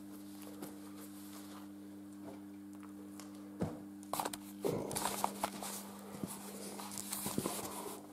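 A faint steady low hum, then from about three and a half seconds in rustling and several knocks of a handheld camera being picked up and carried.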